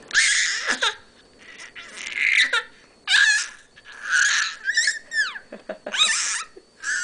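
A baby making high-pitched, breathy squealing noises in short bursts about a second apart. Several squeals slide sharply down in pitch, between laughing and crying.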